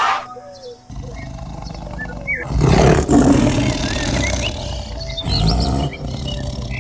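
Lion roaring, loudest about two and a half seconds in and again around five seconds in, over background music.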